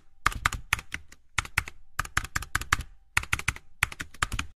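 Keyboard typing sound effect: quick runs of key clicks with short pauses between them, in time with a title being typed out on screen.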